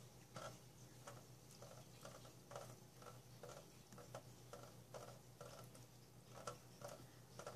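Faint, regular dripping of water drops from a kitchen faucet into a stainless steel sink, a small tick about twice a second, over a low steady hum.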